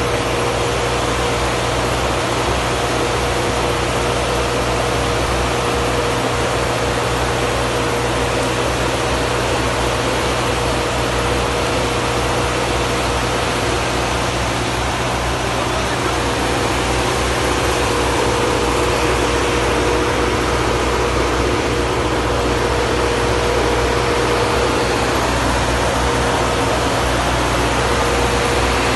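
Water pump running steadily on the new supply line: a constant hum with one steady whining tone over a wide rushing noise.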